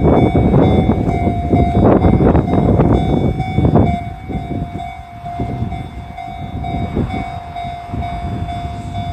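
Freight train hauled by an EF210 electric locomotive passing over a level crossing. Loud rumble and clatter of wheels for about the first four seconds gives way to quieter, regular clacking of the wagons' wheels over the rail joints. The crossing's warning signal rings steadily the whole time.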